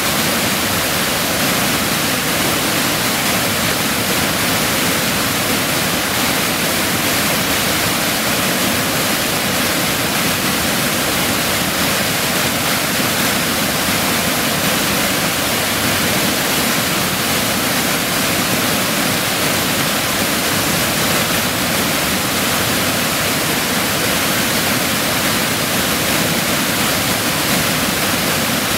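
Waterfall pouring over a rock ledge: a loud, steady, unbroken rush of white water.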